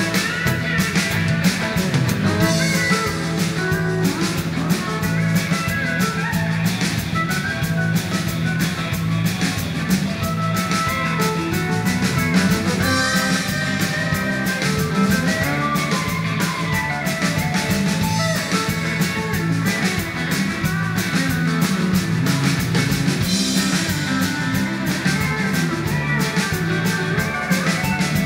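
Live band music: electric guitar and steel guitar lines over bass guitar and a drum kit, played at a steady, loud level.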